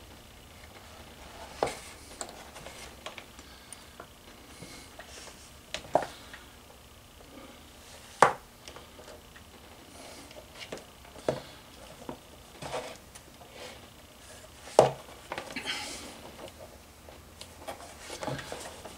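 Hand saddle-stitching of a leather holster with two needles: soft rubbing and handling as thread is drawn through the stitching holes, broken by irregular sharp clicks and taps every few seconds, the loudest about eight seconds in.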